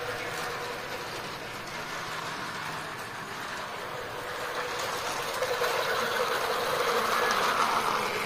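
Small electric motor of a toy model train whirring steadily as the locomotive runs along plastic track, getting louder over the last few seconds as it comes close.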